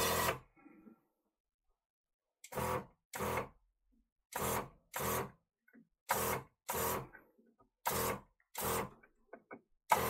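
Kärcher OC3 portable pressure washer squirting water into a boiler's heat exchanger to wash it out, in short bursts of about half a second that come in pairs, a pair every couple of seconds, its small pump running with each burst.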